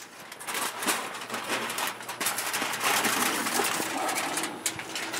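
A large sheet of aluminium foil crinkling and rustling as it is handled and shaken out, louder in the second half.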